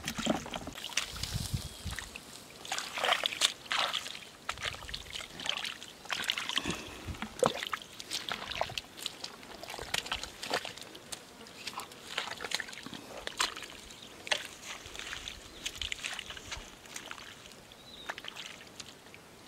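Shallow water sloshing and splashing in a run of irregular small splashes, several a second, stirred up while catching fish.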